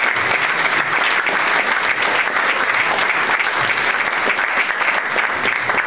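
Audience applauding, a steady dense clapping of many hands.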